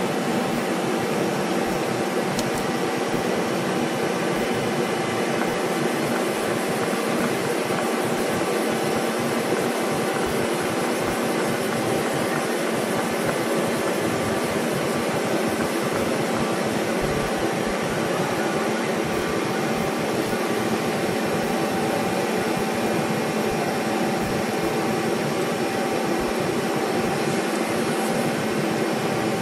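Mazak Multiplex 4200 CNC lathe running under power: a steady machine hum with several steady tones held through it and no sudden knocks or pauses.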